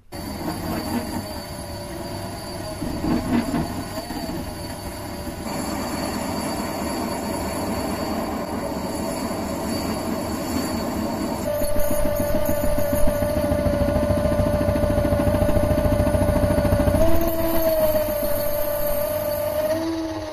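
Mini metal lathe running while its cutting tool faces a rusty steel disc held in the three-jaw chuck, the cut giving a metallic scraping squeal over the motor. The sound starts abruptly at the beginning, and about halfway through the cut gets louder with a steady high ring.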